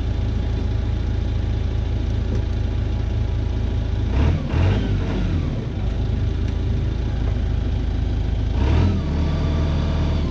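Rough-terrain forklift's engine running steadily at idle, revving up briefly about four seconds in and again near the end as the machine starts to move.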